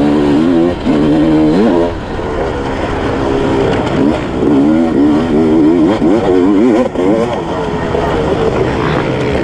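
Sherco 300 SE-R two-stroke dirt bike engine revving up and down over and over as it is ridden through rough trail, the pitch rising and falling every second or so.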